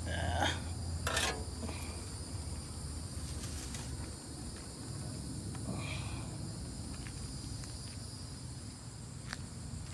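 A steady, high-pitched chorus of insects, cricket-like, with a few short knocks and scrapes about half a second and a second in, and another around six seconds.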